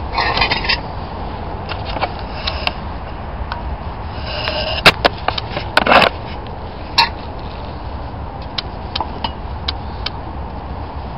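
Handling noises: scattered small clicks and knocks with a few brief scraping rustles, over a steady low rumble.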